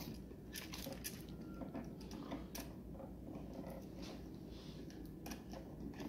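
Faint, scattered clicks and crunchy scrapes from hands working stiff copper wires onto a smart light switch's terminals.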